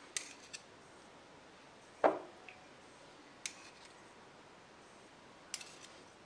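Knife spreading jam on soft curd over cling film, giving a few light clicks and taps, with one louder tap about two seconds in.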